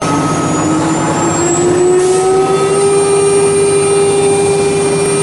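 CNC router spindle running with a steady high whine as its bit carves grooves into a PVC/ABS sheet. The whine rises slightly in pitch over the first two seconds, then holds steady.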